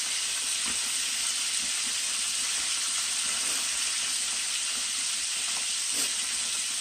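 Breaded chicken thighs deep-frying in a pan crowded with hot oil: a steady sizzle, with a light tap near the end.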